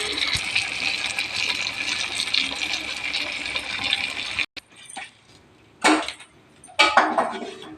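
A steady hiss of kitchen cooking or running water stops abruptly after about four and a half seconds. Then come a few short clinks and knocks of cookware.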